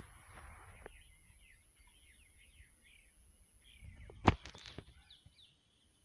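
Small birds chirping faintly and repeatedly over a low rumble of wind or handling, with a thin steady high tone behind. A single sharp knock sounds a little over four seconds in.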